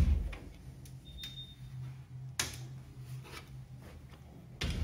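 Interior closet door being handled: a heavy thump as it is swung open, then a sharp click about two and a half seconds in and another near the end, over a low steady hum.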